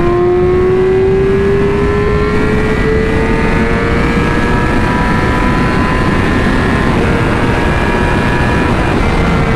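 Yamaha R6 inline-four engine accelerating hard at highway speed, its pitch climbing steadily for most of the stretch and then levelling off near the end, over heavy wind rush on the helmet microphone.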